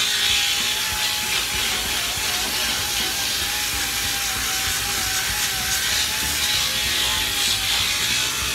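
Heavy-duty Mud Hog grinder with its disc against the sheet steel inside a car's rear wheel well, grinding off old debris and undercoating. A steady motor whine that wavers slightly in pitch as the disc bears on the metal, over a gritty grinding hiss.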